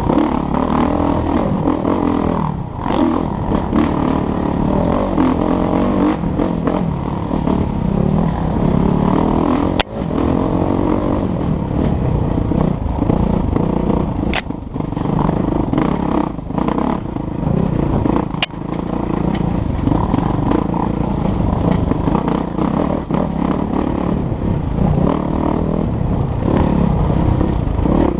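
Kawasaki KX450F's single-cylinder four-stroke dirt bike engine running on a trail ride, its throttle rising and falling, heard from a helmet camera on the rider. Three sharp clicks come partway through.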